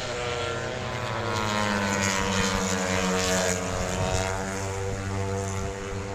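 An engine droning past: a steady mechanical hum whose pitch and loudness swell to a peak about halfway through, then slowly ease off.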